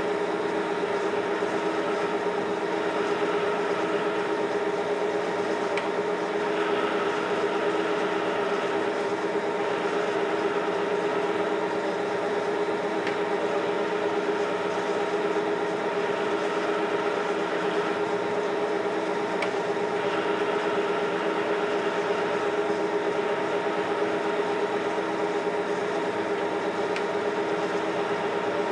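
1952 Monarch Series 60 engine lathe running under power: a steady hum from the headstock drive with the chuck spinning. A tool is hand-fed into the work, taking roughing cuts on a taper, which adds a light scraping hiss in stretches and a few faint ticks.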